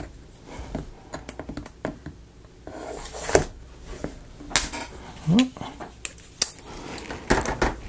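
Scattered light clicks and taps as the parts and packaging of a wooden 3D puzzle kit are handled, with a short vocal murmur about five seconds in.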